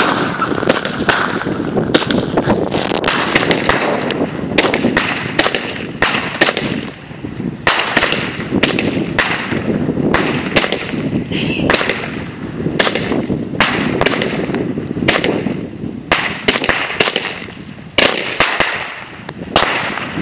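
Fireworks going off: a long, irregular string of sharp bangs and crackles, roughly two a second, over a continuous noisy rush.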